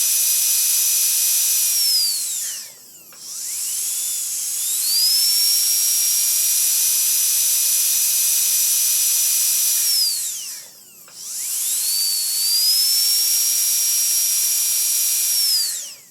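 Dental drill whining at a high steady pitch over a hiss, winding down to a stop twice and spinning back up after about a second each time, then winding down again at the end.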